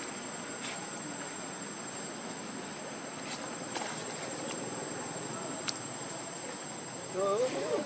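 Steady high-pitched drone of insects, a single unbroken tone, with a few faint ticks. Near the end, a short wavering voice or call.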